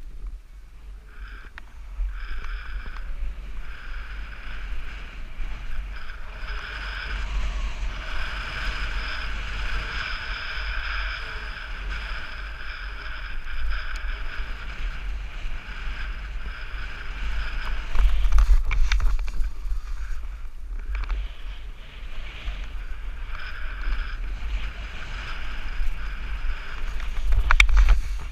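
Wind buffeting a moving action camera's microphone, with the hiss of sliding and scraping across packed snow during a downhill run. It gets louder and rougher with a few sharp knocks about 18 seconds in and again just before the end.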